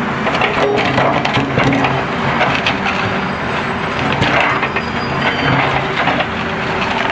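Hydraulic excavator at work: its engine runs steadily while the bucket scrapes the ground and crushes woody debris and roots, with a dense run of crackling and snapping.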